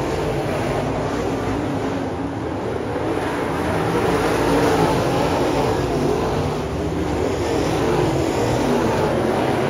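A field of dirt late model race cars at speed on a dirt oval, their V8 engines running together in a steady, loud mixed engine sound.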